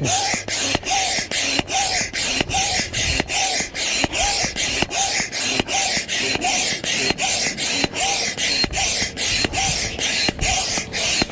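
Manual dual-action hand pump inflating an air tent's air beam: a steady rhythm of air rushes, about three a second, as air is pushed in on both the up and the down stroke, with a short squeak about every other stroke.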